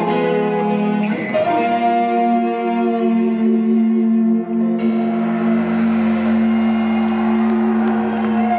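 Live rock band with several electric guitars ending a song on long held chords, changing chord about a second in. About halfway a steady hiss and low rumble join under the held chord.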